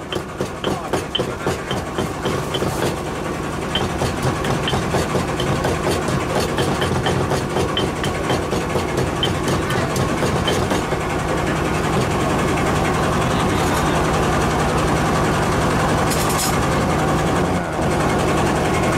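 Pestle pounding in a stone mortar, about three knocks a second, over a steady engine hum. The pounding stops about ten seconds in and the engine keeps running.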